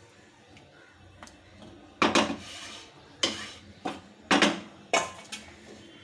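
Metal cookware clattering: a spoon knocking and scraping against a curry pot about six times, starting about two seconds in.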